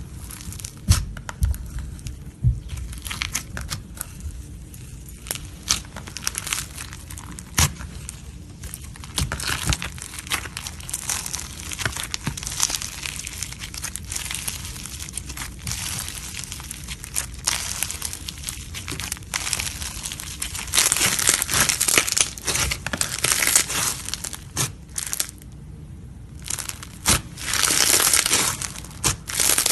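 Slime being squeezed and worked by hand, crackling and crunching with many sharp little pops. It grows louder and denser about two-thirds of the way through and again near the end.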